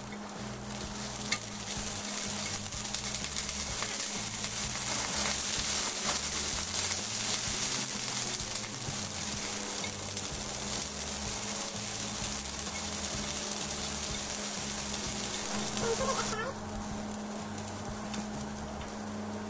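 Hot oil sizzling in a small rectangular frying pan as imitation crab sticks and corn kernels fry. The sizzle cuts off sharply about sixteen seconds in, when the pan comes off the burner.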